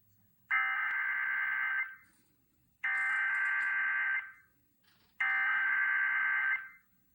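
Emergency Alert System SAME header: three identical bursts of harsh digital data tones, each about a second and a half long, separated by about a second of silence. It is the encoded header of a Severe Thunderstorm Watch alert.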